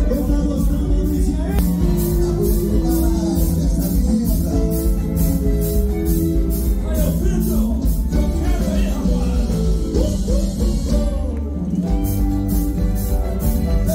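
Live band music: male voices singing with an orchestra, over a steady percussion beat that drops out briefly near the end.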